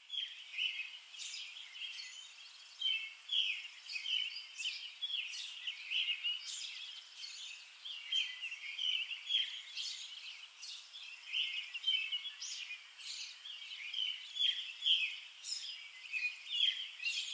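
Songbirds singing outdoors: a busy chorus of short, high chirps and song phrases, overlapping and continuous.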